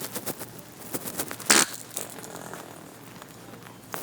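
One short, loud wet fart sound from a prank fart noisemaker about a second and a half in, with small clicks and rustles before and after it.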